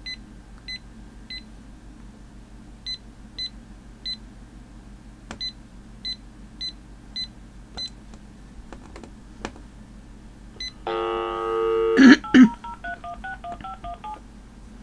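Phone keypad beeping as a number is keyed in, about eleven short single-pitched presses spread over the first eight seconds. Near the end comes a short buzzy tone and two loud clicks, then a quick run of touch-tone (DTMF) dialing tones as the phone dials out.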